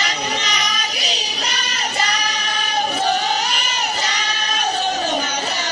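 Women's voices singing long, high, drawn-out notes that slide slowly up and down, with nothing else playing beneath them.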